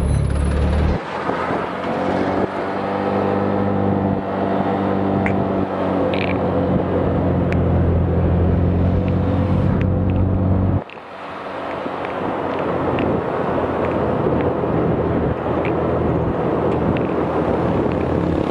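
Motorcycle engine running under way, with road and wind noise. The engine note changes about a second in, then drops sharply about eleven seconds in and builds up again, as with a throttle-off and gear change.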